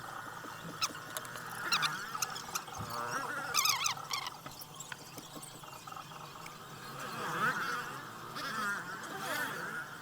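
Metal scraper blade scratching and squeaking against softened black underfill glue around the CPU on a phone motherboard, in irregular strokes.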